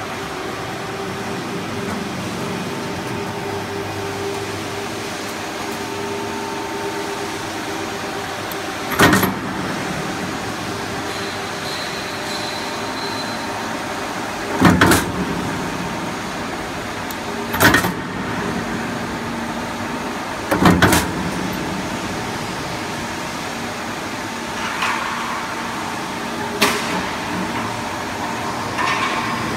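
C purlin roll forming machine running with a steady mechanical hum from its motors and forming rolls. A sharp bang comes every few seconds, about five loud ones and a couple of softer ones, as the hydraulic punching station punches holes in the steel strip.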